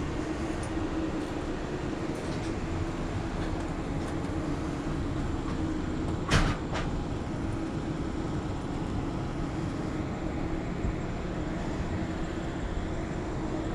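Steady outdoor mechanical hum with an even background rush. About six seconds in there is a single sharp knock, followed by a fainter one.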